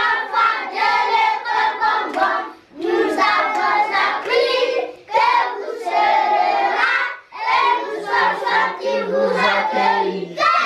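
A group of young children singing together in unison, in phrases of about two seconds with short breaks between them.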